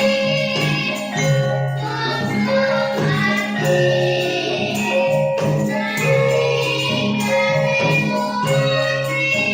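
Javanese traditional music with ringing metallic pitched notes and steady low notes, and a singing voice over them.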